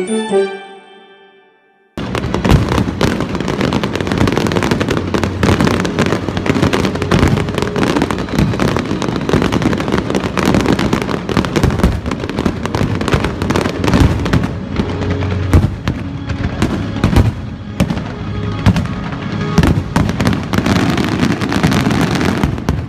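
A fireworks display, with shells bursting and crackling in rapid succession over music. A chiming tune fades out in the first two seconds, and the bangs start abruptly about two seconds in.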